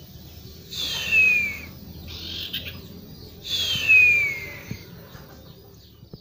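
A small caged songbird, a young sirtu, giving two clear falling whistles about two and a half seconds apart, with softer chattering calls between them.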